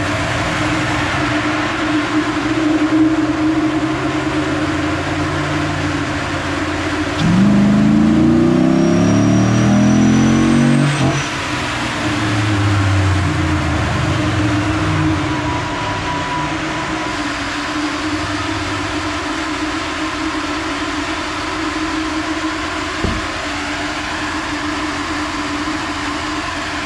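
2010 Dodge Ram's 5.7L Hemi V8, fitted with a cold air intake, running on a chassis dyno: part throttle at first, then about seven seconds in a wide-open-throttle pull with revs rising for about four seconds. The throttle then closes abruptly and the engine winds down. A steady hum runs underneath.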